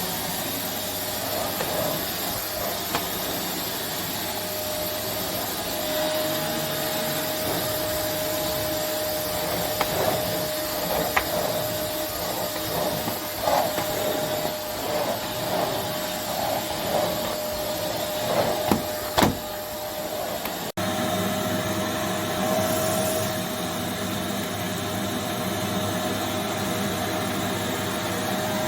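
VYTRONIX CYL01 800 W bagless cylinder vacuum cleaner running steadily with a whine, with a scatter of clicks and rattles in the middle as debris is sucked up.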